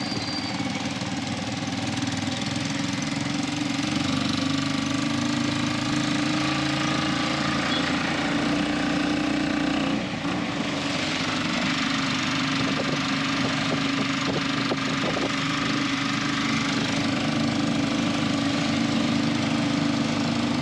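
Vehicle engine running steadily, with a brief drop in level about halfway through.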